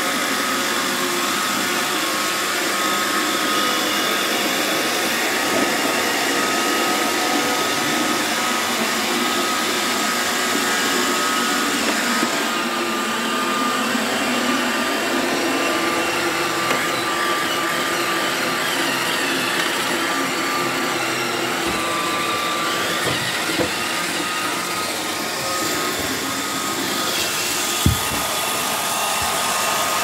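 iRobot Roomba 625 Pro robot vacuum running: steady motor and brush noise with a thin high whine, and a few light knocks in the second half.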